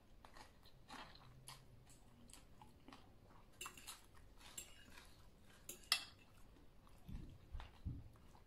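Quiet eating sounds: a person chewing and slurping ramen noodles and salad, with a fork clinking and scraping in the bowl. There is a sharp click about six seconds in and a couple of low thumps near the end.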